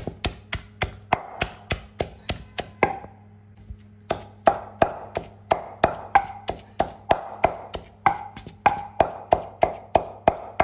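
Pestle pounding dried crayfish and fresh pepper in a mortar: steady knocks about three a second, pausing for about a second roughly three seconds in, then going on.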